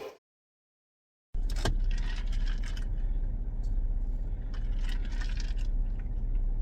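Steady low rumble of a car heard from inside the cabin, with small scattered clicks and rattles. It starts abruptly after about a second of silence.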